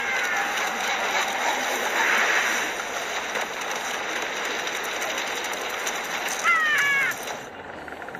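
Animated film soundtrack of a snowy scene: a steady rushing whoosh like wind and blowing snow, with a few short falling squeaky tones about six and a half seconds in, after which it drops quieter.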